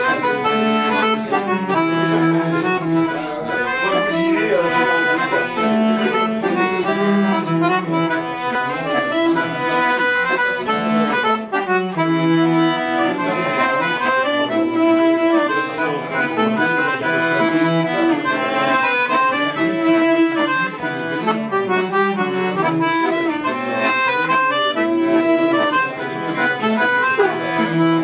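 Accordion and cello playing a mazurka, a lively folk dance tune in triple time, with the accordion carrying sustained melody notes over the bowed cello.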